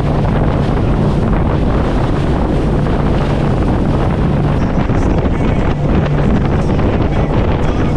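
Outboard-powered center-console boat running at speed: a steady engine drone under heavy wind buffeting on the microphone and the rush of water off the hull.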